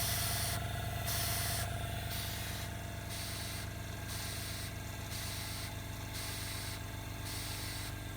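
Compressed air hissing through a 3D-printed ventilator's valve in regular pulses, about one a second, as the valve cycles up and down, over a steady low hum.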